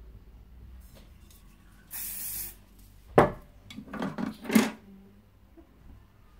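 Hair being teased at the roots with a comb: several quick scraping strokes through the hair, loudest in a cluster about three to five seconds in. A short hiss is heard about two seconds in.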